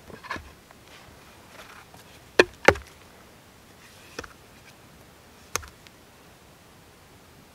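Wooden knocks and creaks as a hand auger is worked in a log and a stick is set into the drilled hole. There are a few soft crackles at first, two sharp knocks in quick succession about two and a half seconds in, and two fainter single knocks later.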